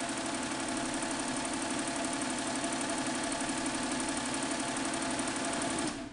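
Melco EMC 10/4T multi-needle embroidery machine stitching at speed, a fast, even mechanical beat of the needle. It stops abruptly near the end.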